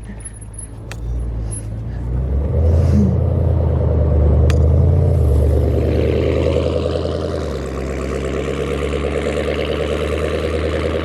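Road traffic passing close by: a vehicle's deep rumble swells about two seconds in and eases off, then another vehicle's engine and tyre noise builds toward the end.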